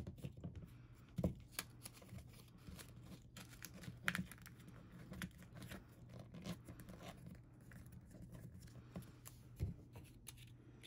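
Paper banknotes being rolled up together by hand and fed into the neck of a glass bottle: faint rustling and crinkling with scattered small scrapes and taps, over a faint steady hum.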